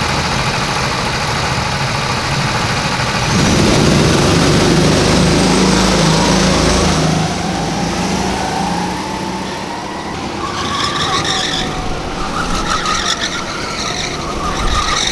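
A field of go-karts running at the starting grid, growing louder about three seconds in. About halfway through they rise in pitch as the karts accelerate away from the start. In the last few seconds a higher-pitched sound comes and goes over them.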